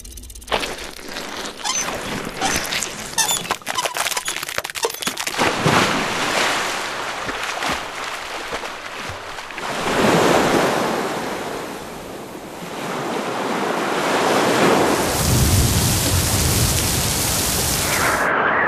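A montage of sound effects: dense sharp crackles and clicks for the first few seconds, then rushing noise that swells and fades like surf or wind, with a low rumble under the last swell, cut off suddenly near the end.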